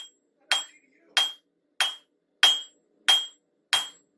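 Hand hammer striking a railroad spike being forged on an anvil, in steady blows about every two-thirds of a second, each with a short metallic ring.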